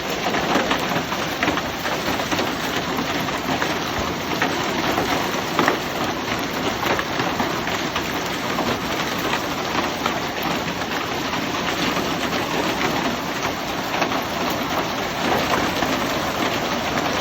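Hail and rain coming down hard: a steady, dense patter of countless small impacts on a surface.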